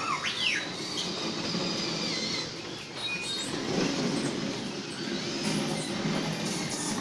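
R2-D2-style droid beeps and whistles: quick rising and falling whistles in the first second, then a long high tone and a few short beeps, over a steady low rumble.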